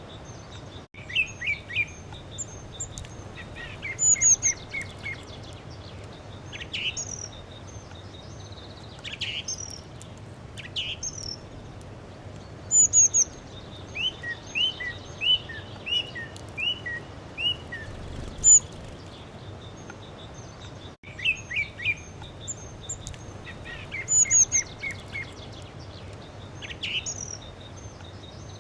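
Birds singing and chirping: short sharp calls and quick runs of repeated notes, over a steady background hiss. The same passage of calls comes round again about twenty seconds later, as if looped.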